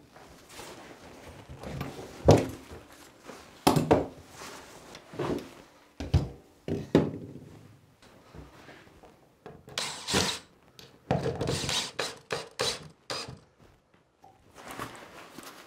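Irregular knocks and thunks of tools and gear being handled and set down on wooden shelves and wall boards, with stretches of scraping and rustling, most of it about two-thirds of the way through.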